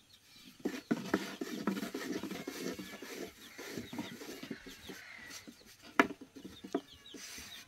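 Chickens clucking, with several sharp knocks, the loudest about six seconds in.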